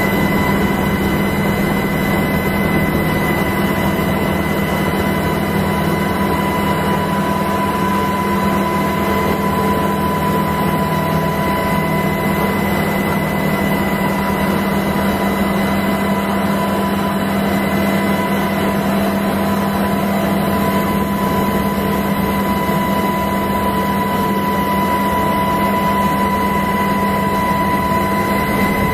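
Steady engine noise of the aircraft flying over the plant, heard from on board: a constant drone with a steady high whine over it, unchanging throughout.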